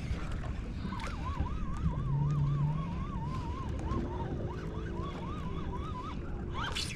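A high siren-like warbling tone, swinging up and down several times a second for about five seconds, over a steady low rumble; a short low hum sounds about two seconds in.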